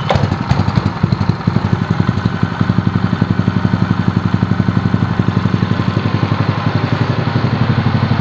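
Lifan KP230 8 hp single-cylinder four-stroke petrol engine, just started, idling with a steady, even run of firing pulses.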